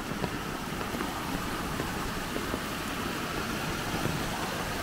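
Rain-swollen creek water flowing fast over its bed, a steady rushing noise.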